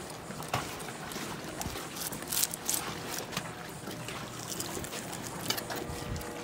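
Fillet knife slicing along a red snapper's backbone, with scattered soft crackles and scrapes over a steady background of lapping water and outdoor noise.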